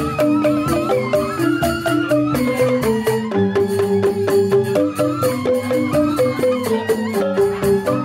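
Balinese joged bumbung gamelan: bamboo xylophones (grantang) playing fast, dense interlocking figures, with a bamboo suling flute wavering over the top.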